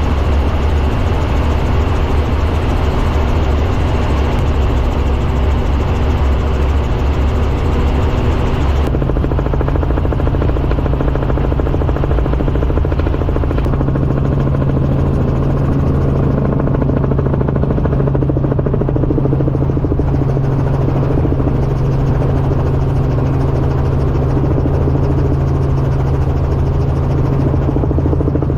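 Helicopter in flight: a loud, steady rotor and engine drone whose low hum shifts higher partway through.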